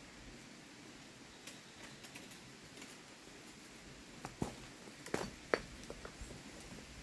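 Faint hiss, then a scattering of sharp clicks and knocks over the last three seconds, the loudest about two-thirds of the way through.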